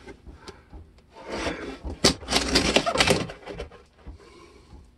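Knife blade slitting the tape on a cardboard mailing box, with cardboard scraping and rustling in two stretches and a few sharp clicks as the box is handled.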